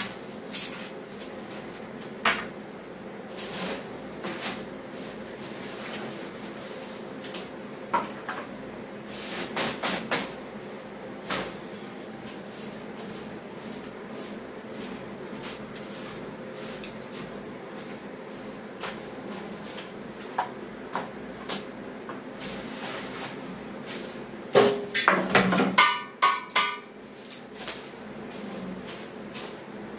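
Scattered knocks and clatter of masonry rubble being gathered up, over a steady low hum. About 25 seconds in comes a cluster of louder clanks with a short ringing knock.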